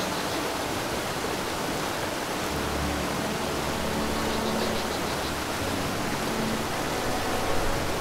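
Steady rushing noise of flowing river water, even and unbroken, with soft held music tones underneath.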